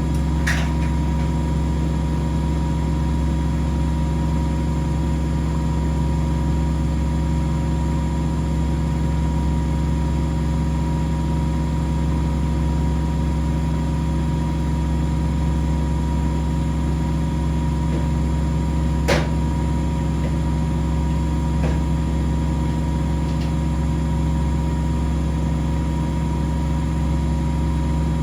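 Household washing machines and tumble dryers running together: a steady low mechanical hum with a few faint clicks, about half a second in and again around two-thirds of the way through.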